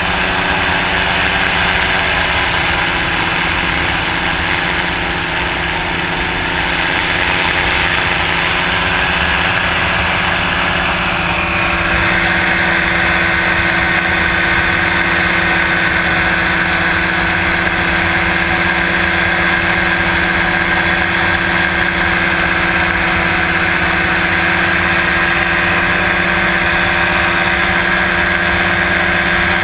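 Paramotor engine and propeller droning steadily in flight, with rushing air; the tone shifts about twelve seconds in, when a higher steady whine comes in.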